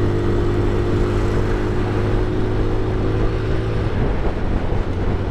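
Honda CG 160 Titan's single-cylinder four-stroke engine running at steady cruising speed, with wind and road noise. Its steady note fades about four seconds in.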